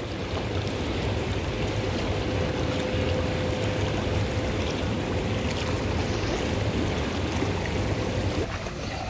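Pool water sloshing and splashing, with wind rumbling on the microphone. A faint steady hum runs underneath and stops abruptly near the end.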